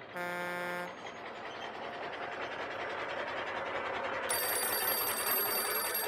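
Sound effects: a brief horn honk, then a vehicle's running noise building up, and a telephone bell ringing from about four seconds in.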